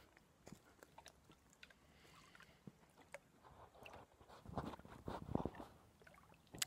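Phone handling noise close to the microphone: scattered faint clicks, then a few seconds of rustling and rubbing with soft thumps as the phone is turned around in the hand.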